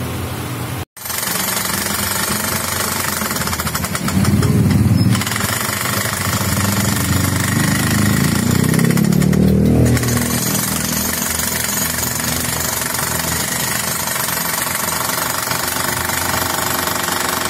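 Powered machinery running steadily with a fast rattling beat, louder around four to five seconds in and again around eight to ten seconds in; it drops out for an instant about a second in.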